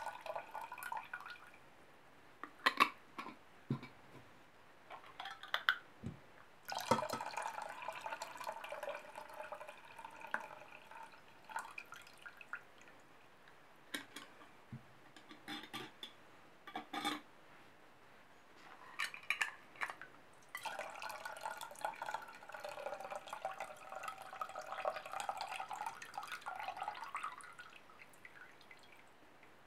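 Hot water draining from glass jars of hot peppers into a stainless steel saucepan, splashing and trickling with a ringing note in several pours, the longest starting about seven and about twenty seconds in. Short knocks and clinks of glass come between the pours. This is the warming water being poured off before the marinade is made.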